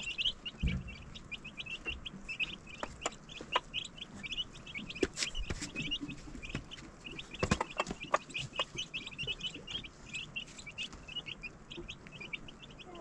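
A brood of chicken chicks peeping continuously, many short high peeps overlapping several times a second, with a few sharp clicks among them.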